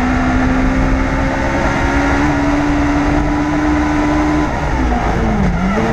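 Legends race car's Yamaha motorcycle engine heard onboard at high, steady revs, the pitch slowly climbing along the straight. Near the end the revs fall and dip sharply twice, typical of braking and downshifting for a corner.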